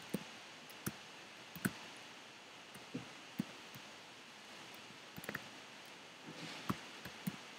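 Computer keyboard keys pressed singly and irregularly, sharp separate clicks about a second apart with a quick cluster of three about five seconds in, over faint room hiss.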